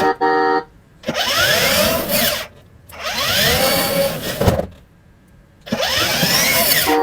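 A small electric motor whirring in three repeated runs, its pitch rising and falling within each run, with short gaps between. A short two-part electronic beep sounds at the start and again near the end.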